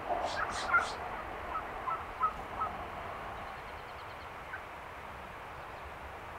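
Wild turkeys calling: an irregular run of short calls over the first three seconds, loudest about three-quarters of a second and two and a quarter seconds in, then only faint steady background noise.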